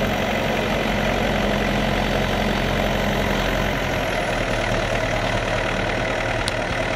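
Forestry forwarder's diesel engine running steadily while its hydraulic crane swings the grapple; the engine note shifts slightly about four seconds in, and there is one short tick near the end.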